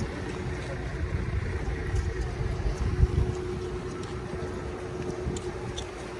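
Wind buffeting the microphone in uneven gusts, strongest about three seconds in, over a steady faint hum.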